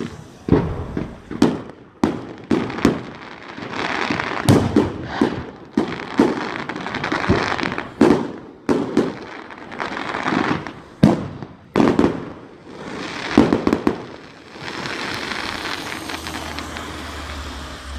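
Aerial fireworks bursting overhead: a rapid, uneven series of loud bangs with crackling between them. After about fourteen seconds the bangs stop and a steady crackle carries on.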